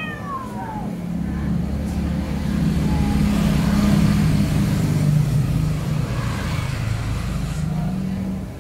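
A motor vehicle's engine hums steadily nearby, growing louder toward the middle and then easing off. At the very start a cat's yowl falls away, from the standoff between two cats.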